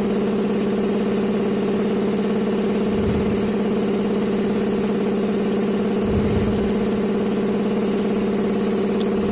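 A machine motor or engine running at a steady speed, giving an even, unchanging hum, with a couple of faint low knocks.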